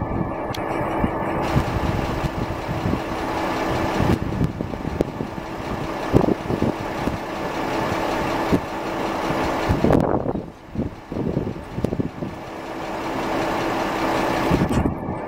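Small industrial tank steam locomotive moving slowly along the track with a steady hiss of steam. The hiss cuts off about ten seconds in, leaving a few irregular low thumps.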